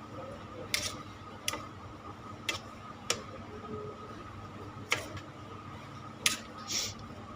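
A spoon clinking and scraping against the dish while the oiled, marinated cauliflower pieces are stirred: irregular sharp clicks every second or so, with a short scrape near the end, over a faint steady hum.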